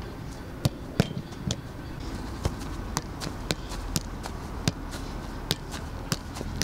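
Football being juggled with the feet and legs: a string of sharp taps of boot and leg on the ball, irregular, about two a second.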